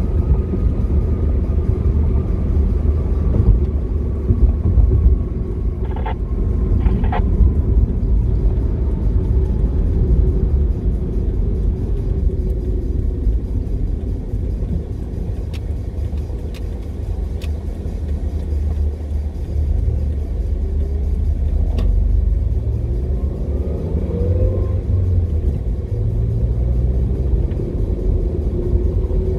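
Car driving, heard from inside the cabin: a steady low rumble of engine and road noise. Two short clicks come about six and seven seconds in.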